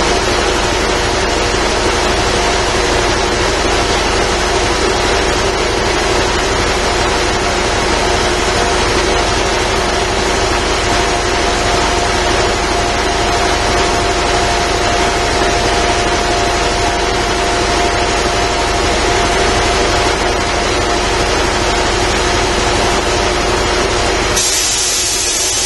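Quincy QR 325 reciprocating air compressor, fitted with an intake muffler, running steadily with a hum and a fast pulsing low rumble. Near the end the low rumble drops away and a high hiss comes in.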